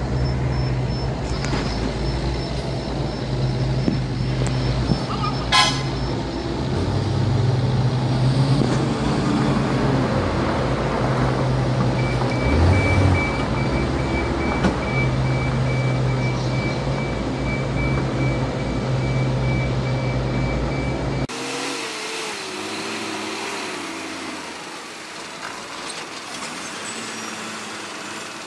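Heavy diesel machinery running with a deep, steady drone, with a sharp click about five seconds in and a thin steady high whine through the middle. After an abrupt change, a diesel truck engine runs more quietly.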